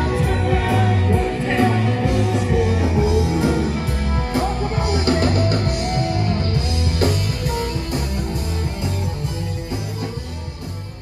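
Rock band playing with a singer, guitar and drums, fading out near the end.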